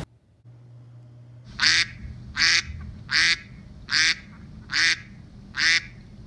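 A duck quacking six times at an even pace, a little under a second apart, starting about a second and a half in, over a faint low hum.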